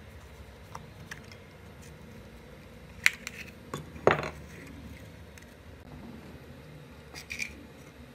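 Screwdriver prying at the rusted end cap of an old fan motor: scattered metal clicks and scrapes, then a sharp metallic crack with a short scrape about four seconds in as the cap comes free. A couple of metal clinks near the end.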